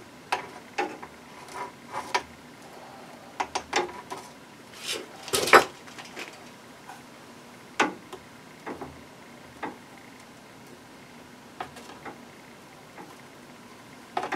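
Scattered clicks and light knocks from parts and tools being handled, with one louder clatter about five seconds in.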